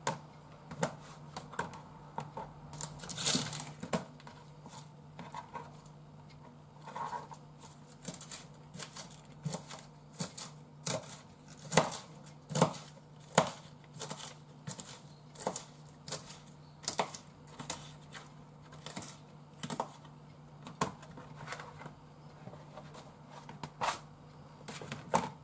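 Kitchen knife cutting shiitake mushrooms and then leafy vegetables on a plastic cutting board: a run of irregular sharp knocks, about one or two a second, over a steady low hum.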